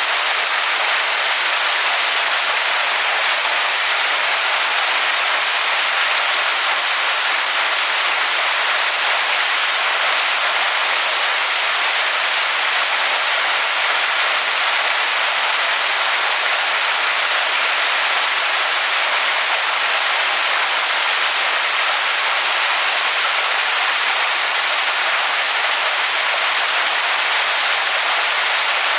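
Waterfall pouring onto rocks: a steady, unbroken rush of water, bright and hissy with little low rumble.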